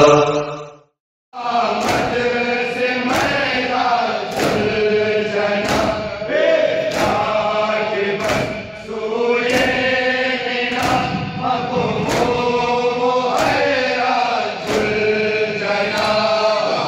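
A crowd of men chanting a Shia noha in unison, with the sharp slaps of their hands beating their chests (matam) in a steady rhythm of about one and a half beats a second. The chanting and slapping start about a second in, after the preceding sound fades out.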